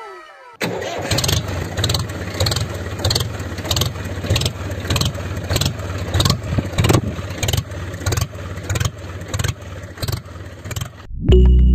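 Small engine running steadily with a regular knock about three times a second, stopping near the end.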